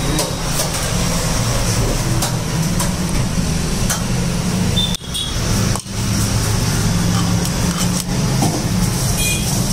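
Steady low rumble of road traffic with engine hum, with scattered light clicks; the sound cuts out briefly twice about five and six seconds in.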